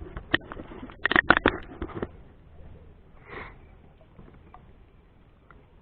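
A quick run of sharp clicks and knocks in the first two seconds, then a short breath or sniff, followed by a few faint ticks.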